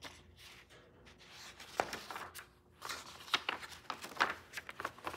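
Paper sketchbook pages being handled and turned: quiet rustling with short sharp flicks and taps, a couple about two seconds in and more frequent through the second half.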